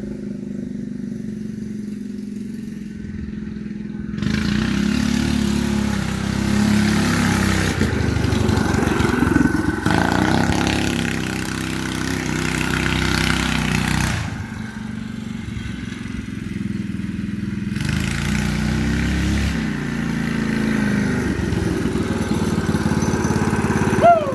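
Straight-piped Predator 212 single-cylinder four-stroke engine on a go-kart, running low and steady at first, then revved up about four seconds in with the pitch rising and falling. It eases off for a few seconds near the middle, then picks up again.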